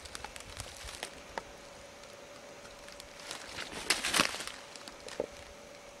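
Footsteps and rustling in dry fallen leaves and twigs on a forest floor: scattered crackles, with a louder crunching rustle about four seconds in, over a faint steady hum.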